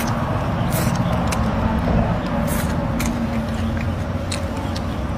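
Eating sounds: a person slurping and chewing long strands of leafy greens, with short wet mouth clicks every so often, over a steady low hum.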